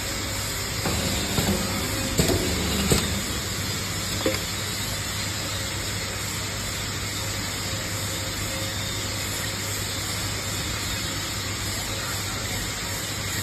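A CNC round screen printer running: a steady machine hum and hiss, with a few clicks and knocks in the first few seconds.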